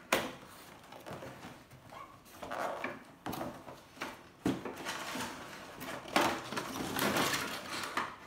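A cardboard toy box being opened and its clear plastic packaging tray pulled out: a few sudden knocks and thumps with scraping and rustling of cardboard and plastic in between.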